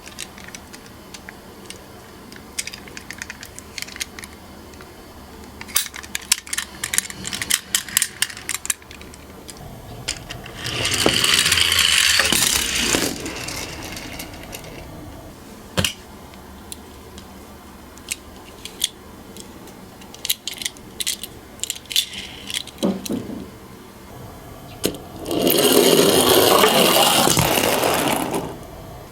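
Miniature toy cars rolling down a slope, heard as two loud stretches of rolling and rattling of about three seconds each, the first about ten seconds in and the second near the end. In between come small clicks and clatters of the little cars being handled and set down.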